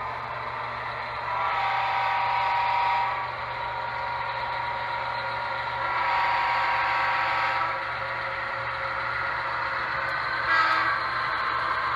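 Model diesel locomotive sound, as from the HO-scale EMD SD60E's sound decoder: a chord air horn blows two long blasts and then one short blast, the start of the long-long-short-long grade-crossing signal. A steady low engine drone runs beneath.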